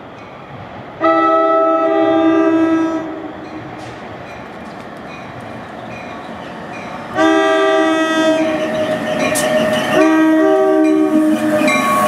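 Approaching New Jersey Transit commuter train sounding its multi-chime air horn as a chord of several tones. One blast about a second in lasts roughly two seconds. A second blast starts about seven seconds in and runs into further blasts toward the end, over the steady rumble of the train on the rails.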